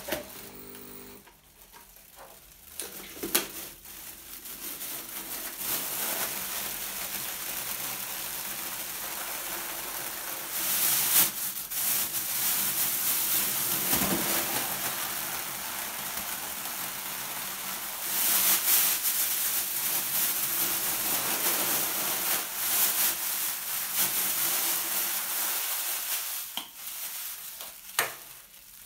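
Thin plastic of a Volcano vaporizer balloon bag crinkling and rustling as it is handled and squeezed flat, a dense crackle that goes on for most of the time and swells twice. A few clicks and knocks from the plastic valve parts come near the start, and a sharp click comes near the end.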